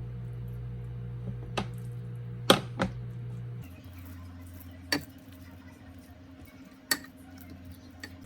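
A handful of sharp, separate knocks and clacks of kitchen utensils and dishes being handled, over a steady low hum.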